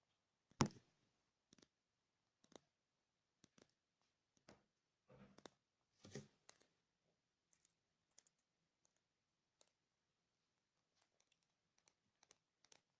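ASMR tapping: scattered soft taps and clicks on an object, irregularly spaced. One sharper, louder tap comes about half a second in, with small groups of taps around five and six seconds.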